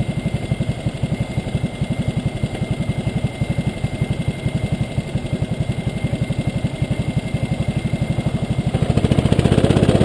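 Rental kart engine idling on the grid, a steady low chugging of about ten beats a second, swelling louder for a couple of seconds near the end.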